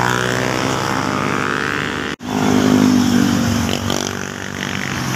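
Motor vehicles passing close by on the road, their engine pitch dropping as each goes past; the loudest pass comes about two and a half seconds in. The sound cuts out for an instant just before it.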